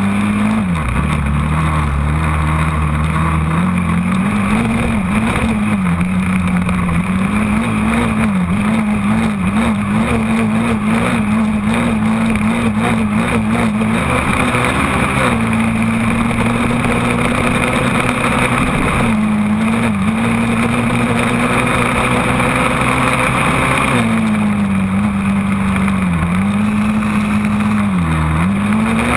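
Quad (ATV) engine running hard through soft sand, heard close from the machine itself. Its pitch rises and falls with the throttle, holds steady for several seconds while climbing a dune midway, then dips a few times near the end as the throttle eases.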